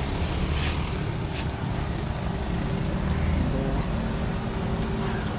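A steady low engine hum, with a few faint clicks and knocks over it.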